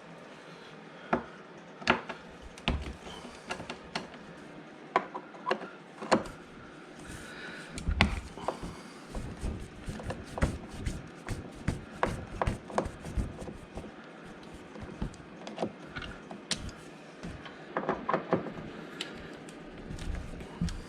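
Irregular clicks, taps and knocks of hand tools and metal and plastic parts being worked as the lock inside a Mercedes S63 rear door is loosened.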